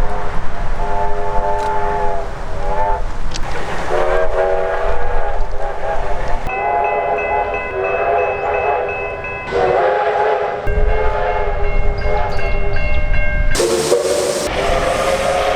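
Train horns sounding a series of blasts, each a chord of several notes sounded together, some long and some short. Near the end a different, brighter and hissier horn cuts in suddenly.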